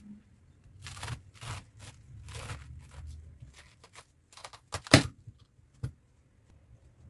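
Large kitchen knife cutting down through a whole head of green cabbage on a wooden cutting board: crisp crunching and tearing of the leaves in a series of strokes. About five seconds in comes a loud knock on the board as the head splits, and a smaller knock follows a second later.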